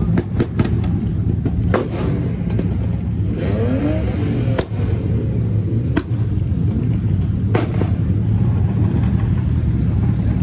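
Rally car engines running at idle with a steady low rumble, broken by several sharp cracks and a brief wavering rise and fall in pitch a little before the middle.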